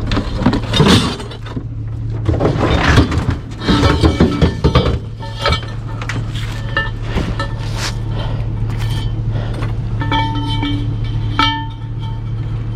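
Heavy scrap steel pieces thrown down by hand, clanking and banging in irregular bunches, some pieces ringing briefly with a metallic tone, over a steady low hum.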